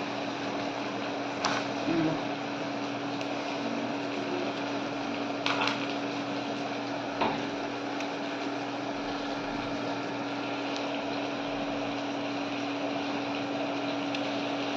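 Water at a rolling boil in a steel cooking pot on a gas stove: a steady hiss with a steady hum underneath. A few light clicks of handling come through, about one, five and seven seconds in.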